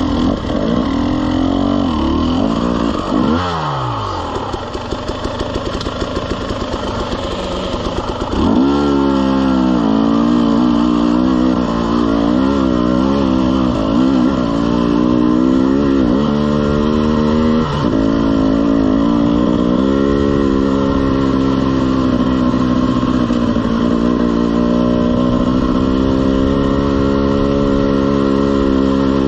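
Two-stroke KTM enduro dirt bike engine under way on a trail. About three seconds in, the revs drop sharply and the engine runs low and quieter for a few seconds. About eight seconds in, the throttle comes back on and the engine note rises and falls as it pulls up a climb.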